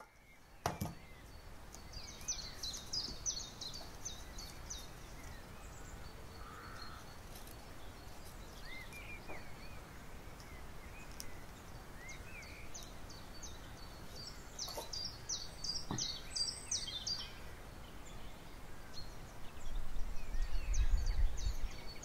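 Small songbirds chirping and twittering over steady outdoor background noise, in bursts a couple of seconds in and again about fifteen seconds in, with a low rumble near the end.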